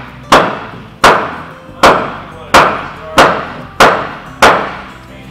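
Hammer blows struck upward on a new Douglas fir frame being fitted into a wooden boat's hull: seven steady, evenly spaced strikes a little under a second apart, each ringing briefly.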